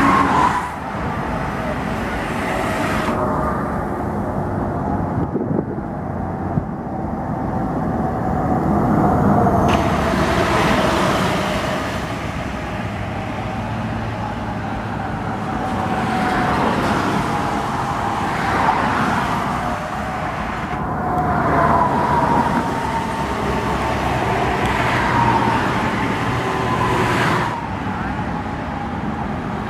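Road traffic passing on a highway, with engine and tyre noise rising and falling as vehicles go by. The sound changes abruptly a few times.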